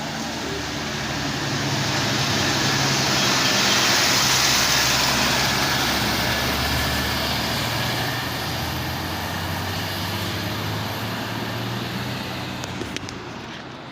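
A Jetbus 5 tour bus's diesel engine labouring up a steep climb. It grows louder to a peak about four seconds in as the bus passes, then slowly fades.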